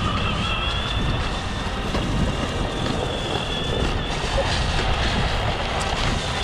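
Small skateboard wheels rolling over a concrete sidewalk with a steady rumble, with wind buffeting the microphone. A faint high whine comes and goes on top.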